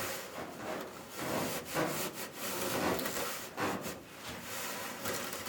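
Irregular rubbing and scraping strokes inside a dryer vent pipe as lint is scrubbed out of it.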